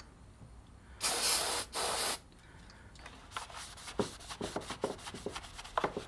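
Aerosol can of CRC QD Electronic Cleaner sprayed in two short hissing blasts, about a second in. After that come faint rubbing and small clicks as a cloth wipes the cleaned surface inside the headlight cowl.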